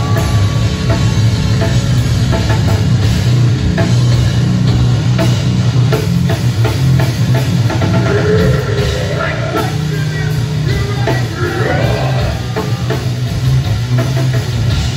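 Live rock band playing loud: electric guitar, bass guitar and a pounding drum kit, heard through a club's PA.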